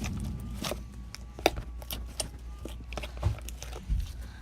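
Soft white slime with cornstarch mixed in, squeezed and pressed by hand: an irregular string of small wet clicks and pops, with a few soft thumps.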